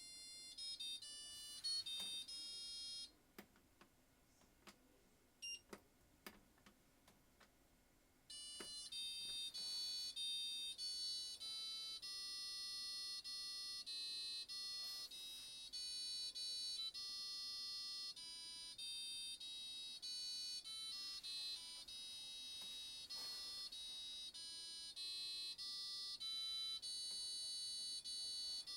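A Fisher & Paykel washing machine's electronic beeper plays a national anthem tune as a string of high, pure beep notes. About three seconds in the melody stops, and a few sharp clicks fall in the quiet gap. A new anthem melody starts after about eight seconds and runs on.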